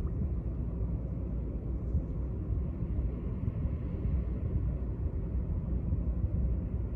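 Wind buffeting the phone's microphone: a steady, fluttering low rumble.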